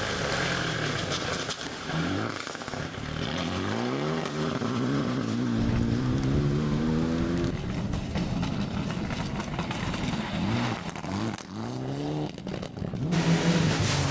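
Rally car engine revving hard, its pitch climbing and dropping back several times as it shifts up through the gears.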